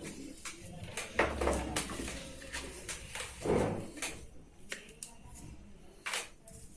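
Handling noises: a run of irregular clicks, knocks and scrapes, with a couple of louder thuds about a second in and halfway through, starting abruptly.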